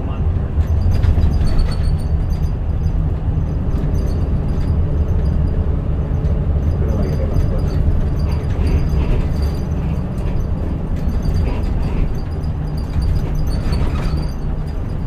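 Mitsubishi Fuso Aero Star city bus (PJ-MP35JM) on the move, heard inside the cabin: its diesel engine drones low and steady under even road noise.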